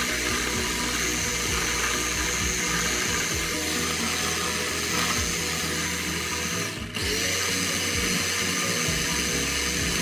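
Small electric press-top blender running steadily as it blends a berry-and-milk smoothie in its plastic jar. About seven seconds in the motor cuts out for a moment and starts again, its pitch climbing back up.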